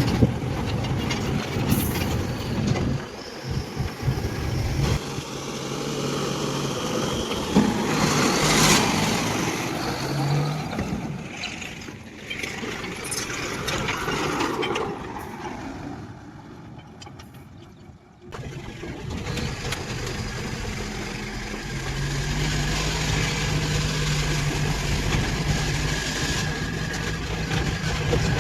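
Heavy diesel engines of an excavator and a dump truck running while the excavator loads the truck. The engine note shifts, drops quieter about two-thirds of the way in, then comes back stronger and steady.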